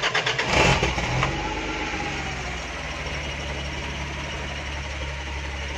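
Off-road truck engine catching just after being started, uneven for about the first second, then settling into a steady idle.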